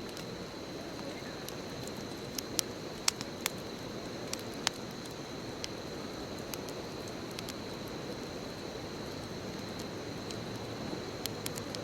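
Wood bonfire burning: a steady low rush of flames with scattered sharp crackles and pops from the burning wood, a run of them a couple of seconds in and a few more near the end.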